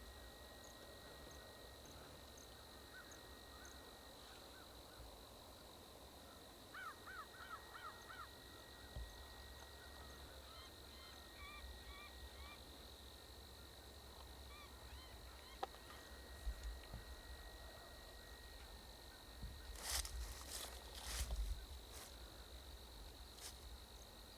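Faint outdoor quiet with a steady high whine, a quick run of bird-like chirps a few seconds in and scattered faint chirps after, and several sharp clicks near the end.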